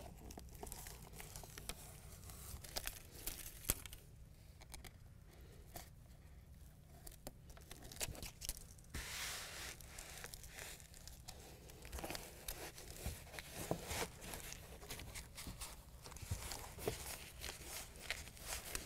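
Adhesive backing being peeled off white hook-and-loop (Velcro) strips, with the plastic release liner crinkling and hands rubbing the strips down. Faint and intermittent, quieter for a few seconds in the middle.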